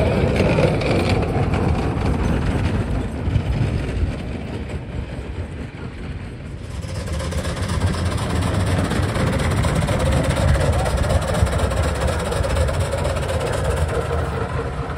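Small live-steam locomotive and its riding cars running past on miniature-railway track, a steady rumble of the train in motion. It fades for a few seconds near the middle and picks up again.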